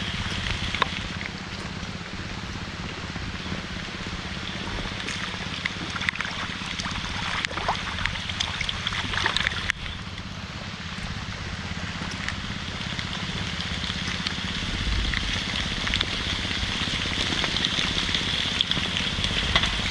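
Heavy rain falling steadily, with scattered louder drop hits now and then.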